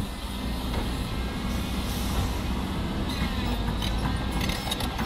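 Heavy diesel construction machinery engine running steadily with a low hum, with a few sharp metallic clicks or clanks in the last second or so.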